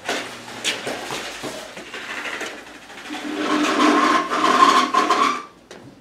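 Rusty car exhaust pipe with its silencer boxes being pulled free from under the car: a few metal knocks and clanks, then about three seconds in a louder grating metal scrape with a ringing tone that stops abruptly after a couple of seconds.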